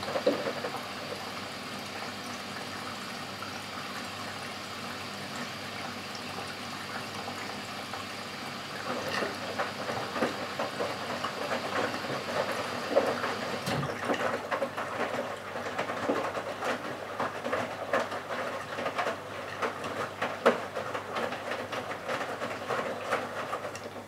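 Bosch Serie 6 front-loading washing machine mid-wash: a steady hiss of water coming in runs until about halfway and then cuts off. Meanwhile the drum turns the wet laundry over with irregular splashing and soft knocks, which stop abruptly at the end.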